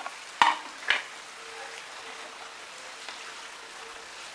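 A wooden spatula knocks three times against a non-stick pan in the first second, about half a second apart. Then a steady soft sizzle follows as boiled taro leaves fry and are stirred in with prawns and spices.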